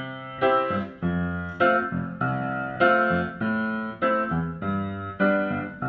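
Piano music: a run of struck chords, a little under two a second, each ringing and fading before the next.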